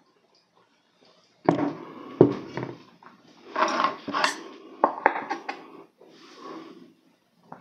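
Tableware being handled on a table: a glass water bottle is set down with a couple of loud knocks, then chopsticks are picked up, with a run of sharp clicks and handling noise.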